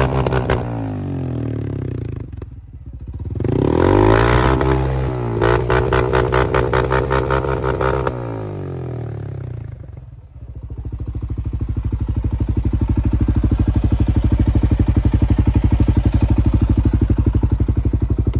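CFMoto CForce 625 ATV's single-cylinder engine running through a catless stainless-steel exhaust. It is revved up and down several times over the first eight seconds, then drops off and rises again to a steady raised speed with a fast, even exhaust pulse.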